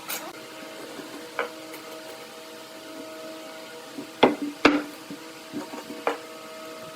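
Sharp knocks of wood being struck, as in hammering or tapping joints together, five in all, irregularly spaced, with the two loudest close together about four and a half seconds in. A steady hum runs underneath.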